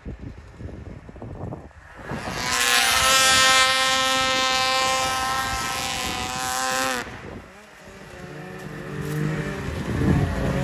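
Snowmobile engines at high revs as two sleds accelerate across snow. One runs loud and steady at high revs for about five seconds, then cuts off suddenly; near the end another engine rises in pitch and loudness as a sled passes close.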